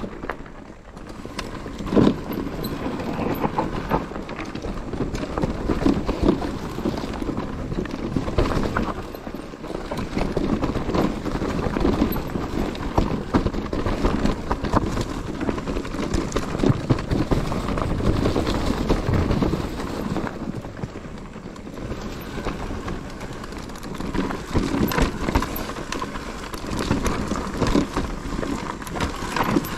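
Enduro mountain bike riding over a rough trail: continuous irregular clatter and rattling from the tyres, chain and frame.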